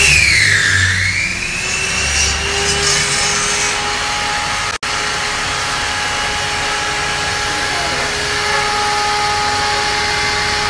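Table-mounted circular saw running with a steady whine. In the first second or two its pitch dips and climbs back as the blade bites through the wood board, then it spins on freely at full speed.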